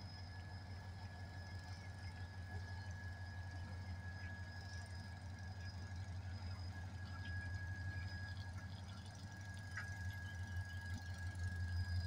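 NLC-30 diesel locomotive hauling a coal train slowly past, its engine giving a steady low rumble that grows louder near the end, with a steady high-pitched squeal running alongside.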